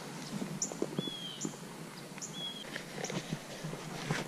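Birds calling: two short, slightly falling whistles and several brief, higher chirps between them. Close rustling and light knocks of clothing and hands come through over the calls.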